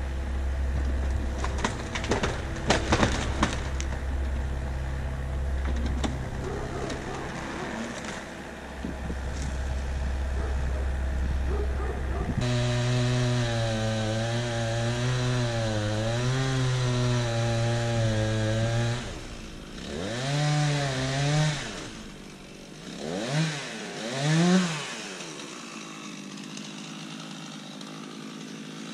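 Chainsaw idling, then run at high speed for about six seconds with its pitch wavering, revved up and down twice more, and shut off.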